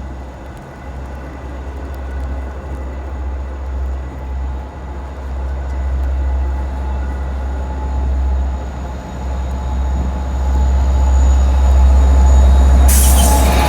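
A train approaching, its rumble growing steadily louder, with a faint steady high whine. A loud hiss breaks in near the end.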